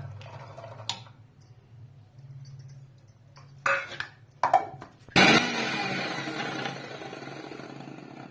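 A few knocks and clicks, then a kitchen mixer grinder (mixie) starts suddenly about five seconds in, its motor spinning up, and runs loudly for about three seconds, coarsely grinding garlic cloves.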